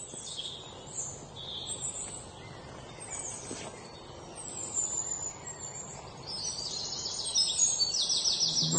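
Birds chirping and trilling over a soft steady background hiss, getting louder toward the end, where quick rapid-note trills come in.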